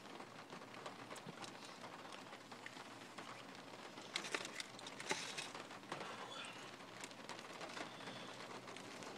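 Faint eating sounds: quiet chewing of mashed potatoes, with a few small clicks and rustles from the food container, more of them a little past the middle.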